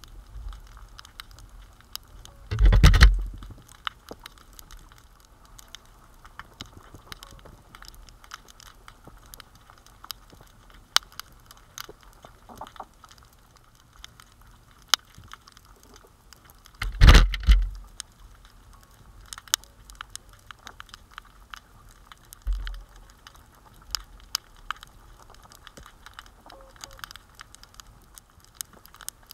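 Underwater crackle of many small, sharp clicks, broken by two loud, heavy thumps, about three seconds in and about seventeen seconds in, and a smaller thump a little after twenty-two seconds.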